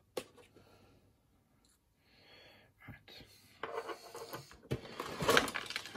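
Cardboard model kit box being handled and turned over on a desk. There is a light click and soft rubbing at first, then louder cardboard scraping and rustling over the last couple of seconds.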